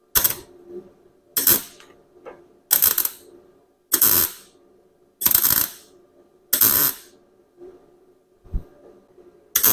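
Welder laying short tack welds to fix a sheet-steel patch panel into rusted car bodywork. Each tack is a brief crackling burst, about half a second long. Six come roughly a second and a quarter apart, then after a pause with a soft knock a seventh comes near the end.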